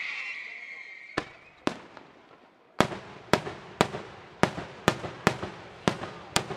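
Daytime fireworks display: a high whistle fades out in the first second, then sharp aerial shell bangs, two a little after one second in and, from near the middle, a steady string of about two bangs a second, each echoing.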